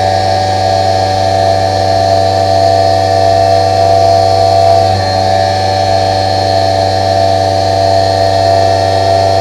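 Spindle of a 2 HP Tormach 1100MX CNC mill running at speed with a steady hum and high whine as an HPX drill cuts holes in steel.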